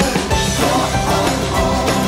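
Background pop-rock music with a steady drum beat and guitar.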